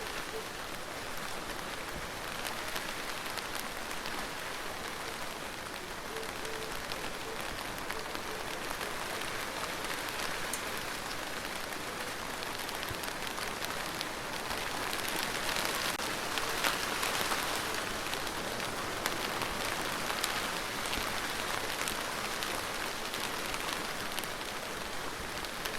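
Steady rain falling on a surface, with many individual drops ticking through it; the rain grows a little heavier about halfway through.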